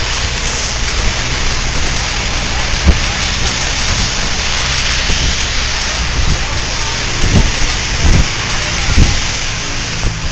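Heavy rain and wind of a tornado storm: a loud, steady hiss, with a few short low thumps in the second half.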